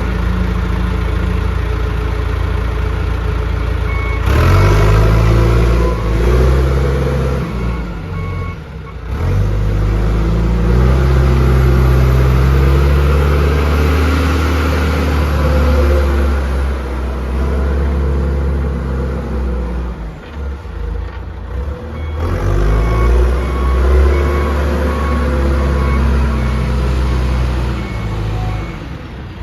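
John Deere 310SE backhoe's turbo diesel engine running as the machine is driven about, revving up and dropping back several times. A reversing alarm beeps steadily in two stretches, from about four seconds in and again from about twenty-two seconds in.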